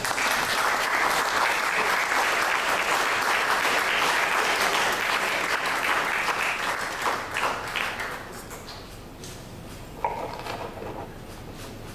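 Audience applauding, a dense patter of many hands clapping that dies away about eight seconds in.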